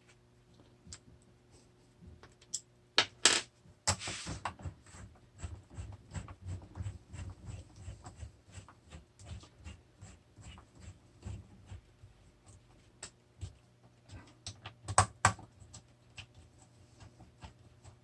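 Torx screwdriver tightening the main screws back into a Onewheel Pint, heard as a long run of light, quick clicks and ticks, with a few louder knocks about 3 and 4 seconds in and again near the end.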